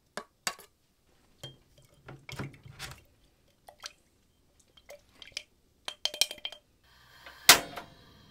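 Glass and metal kitchenware clinking and knocking as cooking ingredients are handled and set down: a string of separate sharp clicks, a few of them ringing briefly, with the loudest knock near the end. A faint steady hiss starts near the end.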